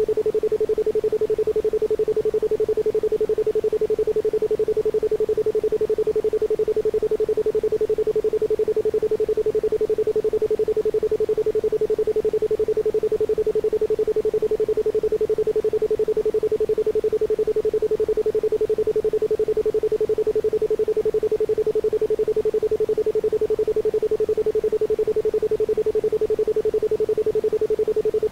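Isochronic tone: a single pure tone at 432 Hz, pulsed on and off rapidly in an even beat, with no background sound behind it.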